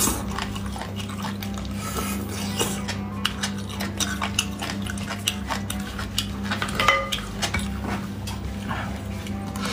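Close-miked wet chewing, smacking and squelching of someone eating soft, sauce-coated lamb bone marrow, full of quick sharp wet clicks.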